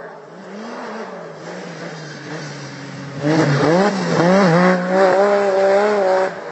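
Racing snowmobile engine, a steady drone at first, then loud from about three seconds in as the sled comes over a jump. The revs swoop up and down a few times, then hold high before dropping away abruptly near the end.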